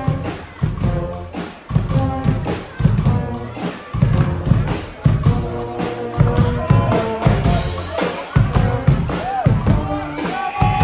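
Guggenmusik brass band playing live: sousaphones, trumpets and trombones over big bass drums and cymbals, driven by a heavy, steady drum beat.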